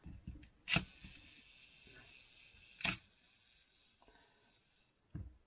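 Nikon FA 35mm film SLR clicking twice, about two seconds apart, as its controls are worked by hand, with a fainter click near the end.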